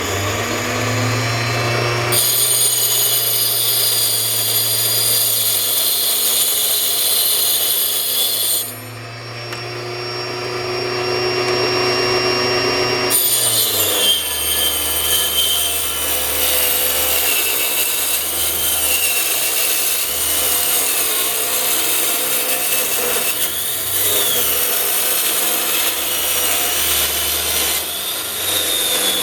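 Micro-Lux 50304 micro table saw with a 2-inch blade running with a steady motor hum and rasping through thin wood. The sound changes abruptly a few times, in spliced stretches.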